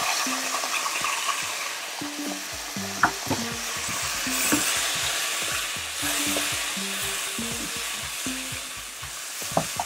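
Sliced bell peppers, onions and carrots sizzling in a nonstick wok as a spatula stirs them, scraping across the pan with a few sharp taps.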